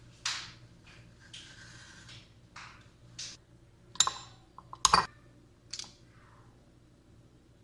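Lever ice cream scoop scraping through firm frozen ice cream in a metal pan, several short scrapes. About four seconds in, and again around five seconds, come sharp clicks and knocks from the scoop's release lever and the scoop striking a glass bowl. The knock near five seconds is the loudest.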